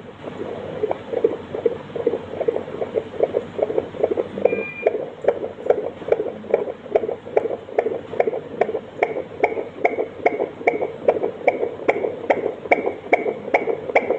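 Fetal heartbeat picked up by a Doppler monitor: fast, even pulses of about two a second, a normal fetal heart rate.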